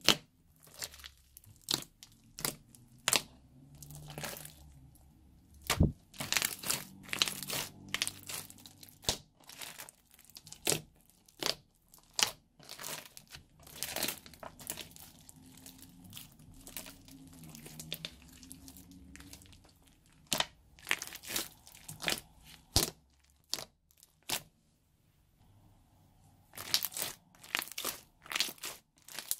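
Thick fluffy slime full of small red beads being stretched, pressed and squeezed by hand, giving irregular sticky clicks, pops and crinkly crunches, with a brief lull near the end.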